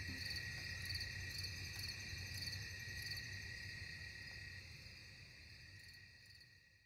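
Crickets chirping steadily, with a pulse about twice a second, fading away toward the end.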